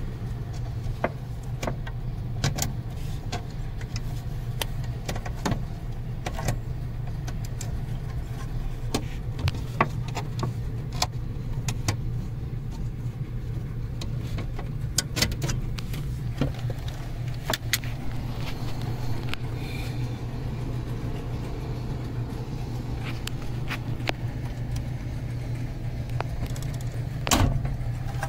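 A steady low hum under many scattered light clicks and knocks. The clicks fit a handheld camera brushing against the car's interior trim, carpet and wiring.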